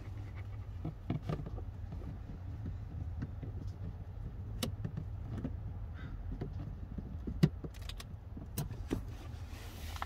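Scattered small plastic clicks and taps as a fuse is worked loose and pulled out of a car's interior fuse box. Underneath runs a steady low hum.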